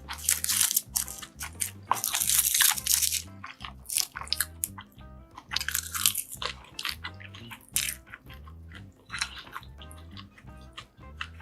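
Close-miked eating: bites and crunchy chewing in loud bursts, four main ones, with quieter chewing between them. Soft background music with a steady, repeating bass line plays underneath.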